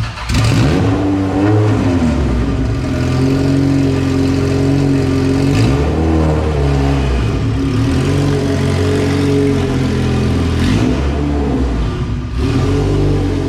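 Honda B18 LS-VTEC four-cylinder engine running with no exhaust system fitted: a loud, steady idle with a few brief throttle blips, the pitch rising and falling about four times. It comes in loud about half a second in and drops away briefly near the end.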